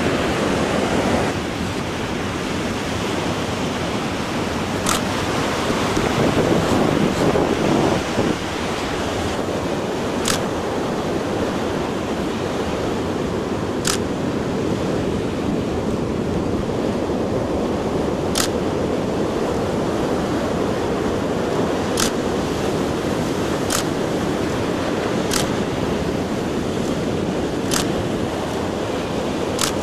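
Surf breaking on the beach with wind on the microphone, a steady wash that swells briefly around seven seconds in. Over it a camera shutter clicks singly about every two to four seconds, some eight times.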